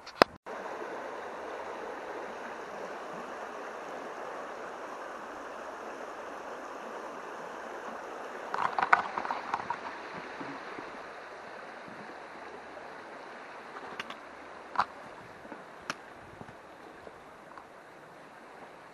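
Small moorland stream running steadily, fading a little in the second half. A short cluster of knocks and scrapes about halfway through, and a few single sharp clicks later.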